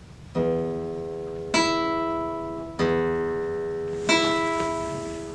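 Classical guitar: four plucked notes or chords about a second and a quarter apart, each left to ring and fade, alternating between two voicings.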